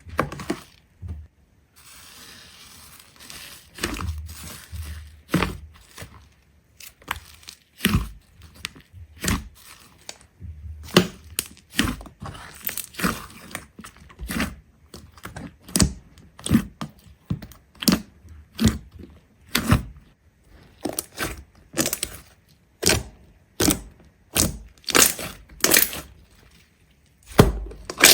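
A run of sharp cracks and crunches, something being repeatedly broken or crushed, about one or two a second and coming faster in the second half.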